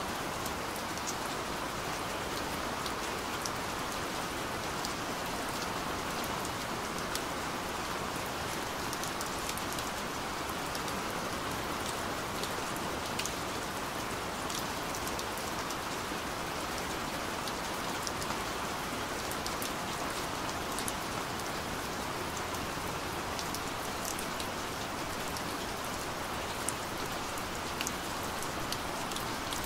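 Recorded rain falling steadily: an even hiss with scattered sharp drop ticks, unchanging in level throughout.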